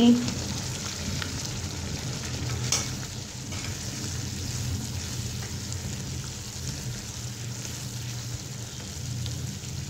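Onion-tomato masala sizzling in oil in a nonstick kadhai while boiled chana dal is stirred through it with a silicone spatula, at a steady level with a few soft spatula scrapes.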